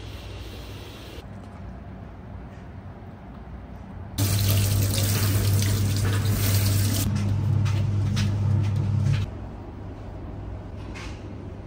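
Kitchen tap running into a stainless steel sink, the water splashing over a plastic-wrapped piece of raw salmon held under the stream, with a low hum. It starts abruptly about four seconds in and stops about five seconds later.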